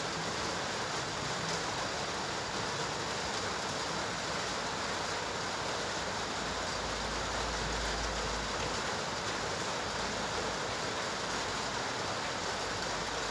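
Steady, even rushing background noise with no clear source, and a brief low rumble from about seven to eight and a half seconds in.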